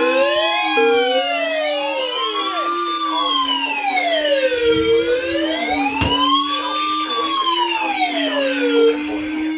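A siren wailing, its pitch rising and falling slowly about every four seconds, over a steady low tone; several wails overlap near the start. A single sharp click comes about six seconds in.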